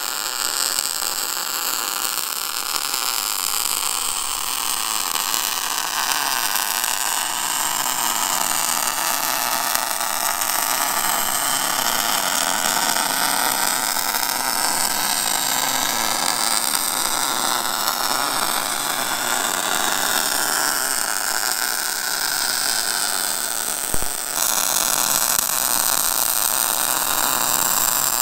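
MIG welding arc sizzling steadily as beads are laid welding steel high steer arms onto a Dana 60 steering knuckle. There is a short click near the end.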